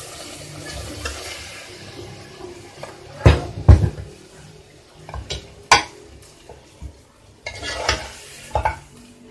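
Metal spoon scraping and clanking against a metal cooking pot as cooked lamb is dished out: a few sharp knocks, the loudest about three and a half seconds in.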